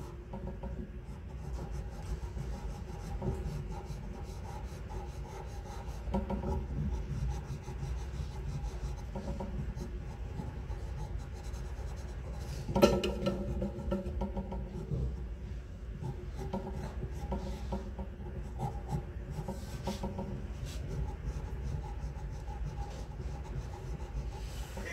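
Faber-Castell pastel pencil scratching and rubbing on Strathmore charcoal paper in short shading strokes, over a low steady hum, with one sharp knock about halfway through.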